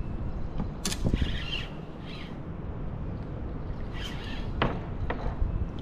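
Steady low rumble of wind and water lapping around a kayak, with a few short, high squawks about one, two and four seconds in, and a sharp click just before the first.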